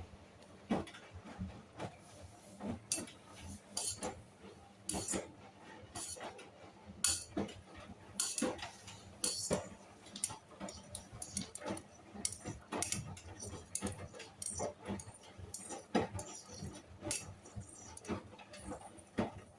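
Hoover washing machine drum turning slowly through the end of a rinse, the laundry tumbling with irregular clicks and knocks over a low hum, all stopping abruptly near the end.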